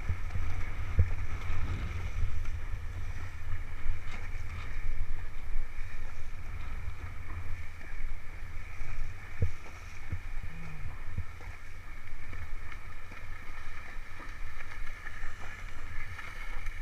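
Horses wading at a walk through shallow lake water, their legs splashing, under a steady low rumble of wind on the microphone.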